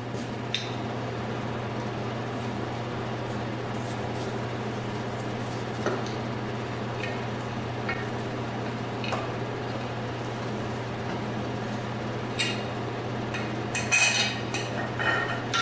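Scattered light metallic clicks and clinks of a screwdriver working the screws of a mini dirt bike's flywheel cover, busiest near the end, over a steady low hum.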